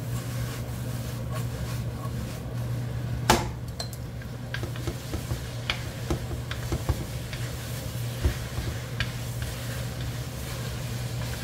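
Ramen noodles in jjajang sauce being stir-fried in a nonstick frying pan: a faint sizzle with scattered light taps and scrapes of wooden chopsticks against the pan, and one sharper clack about three seconds in. A steady low hum runs underneath.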